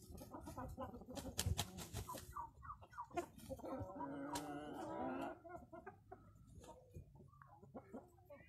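Flock of light Brahma chickens clucking, with one longer drawn-out call lasting about a second and a half near the middle.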